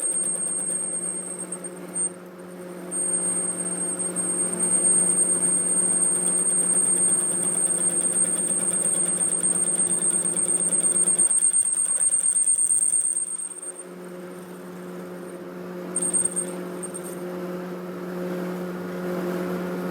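Metal lathe running with a steady hum, and a high-pitched steady whine from the tool cutting the metal pulley; the whine drops out briefly about two seconds in and stops about thirteen seconds in, leaving the machine humming.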